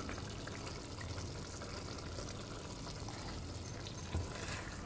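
Matar paneer curry simmering in a pan: a faint, steady bubbling hiss, with one soft knock about four seconds in.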